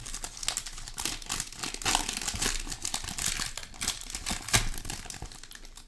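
Foil trading-card pack wrapper crinkling and crackling in the hands as it is worked open, with a sharper crackle about four and a half seconds in.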